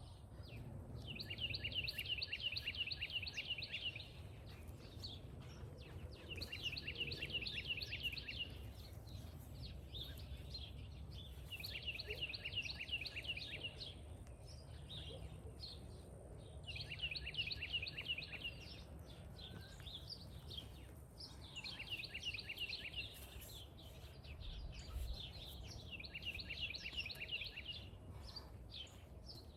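A songbird sings a rapid trill of quick down-slurred notes, repeating the phrase six times, about every five seconds, over a steady low outdoor rumble.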